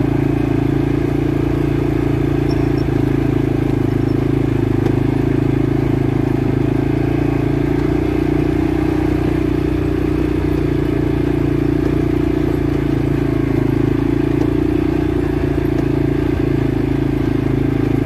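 CFMoto CForce 500 ATV's single-cylinder engine running steadily at a cruise, with tyres rolling over a rocky dirt trail.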